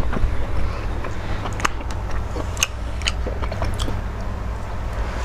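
A person chewing a mouthful of food, with scattered wet mouth clicks at uneven intervals, over a steady low hum.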